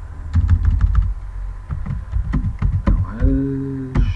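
Computer keyboard keys clicking as text is typed: a quick run of taps in the first second and a few more about two seconds in, over a low steady hum. About three seconds in, a man's voice holds a steady drawn-out 'uhh' for under a second.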